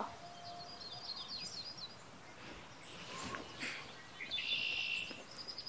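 Birds chirping outdoors in quick runs of high notes, with soft rustling and knocks from a shoulder bag being handled about three seconds in.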